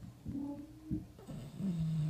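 Bulldog snoring in its sleep: two snores, each a held low tone, the second lower, with short snorting catches between them.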